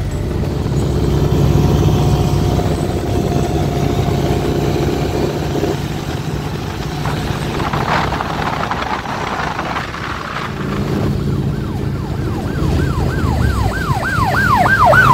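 Vehicle engine running, then about thirteen seconds in an emergency siren starts yelping in quick rising-and-falling sweeps, about four a second, and grows louder near the end.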